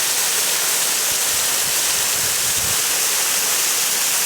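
Waterfall crashing down rocks into a plunge pool, heard up close as a steady, even rush of water.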